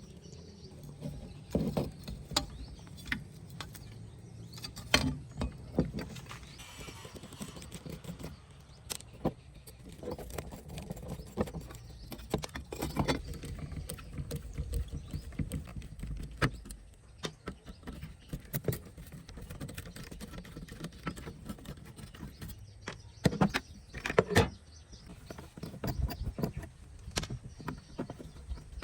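Scattered, irregular clicks and knocks over a low steady rumble.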